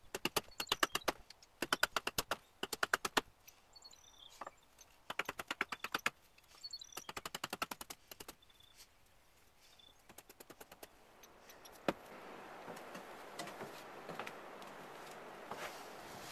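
Hatchet chopping into a green trembling aspen spoon blank on a chopping block: quick runs of sharp knocks, about ten a second. From about 12 s in, a steady rush of wind on the microphone takes over.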